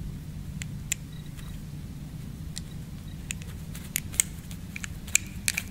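Light, irregular clicking from the internals of a CAV diesel injection pump as its drive shaft is turned by hand: the pumping mechanism sliding back and forth now that it has been freed up. A few clicks come early, then they come more often over the last couple of seconds.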